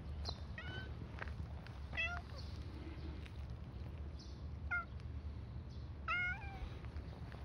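Orange-and-white domestic cat meowing four times, short calls with the last one longer and falling in pitch at the end.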